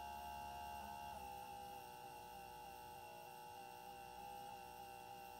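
Faint, steady hum of a nebulizing diffuser's 12 V micro air pump running, a cluster of steady tones that shifts slightly about a second in.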